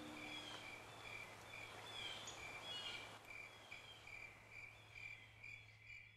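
Quiet outdoor ambience of a cricket chirping in an even rhythm, a few chirps a second, over a faint steady low hum, with a few brief bird chirps. The last of a church bell's ring fades out in the first second.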